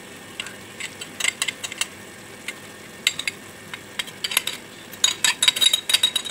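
Knife blade clicking and scraping against a glass bowl as spices are scraped off into the pot, in irregular clusters of short taps, with a thin squeak near the end. A faint sizzle of onion-tomato masala frying in oil underneath.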